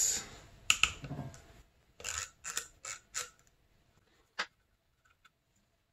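Ratchet and 8 mm socket working the oil-line banjo bolts on a snowmobile's two-stroke oil pump: a few scattered small metal clicks and taps, with one sharper click about four seconds in.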